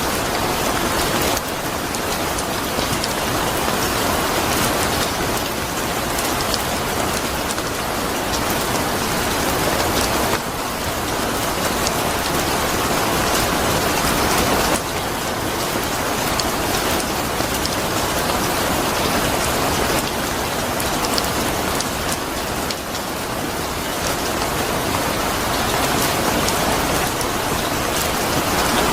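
Steady heavy rain falling on a surface, a dense even patter with no break.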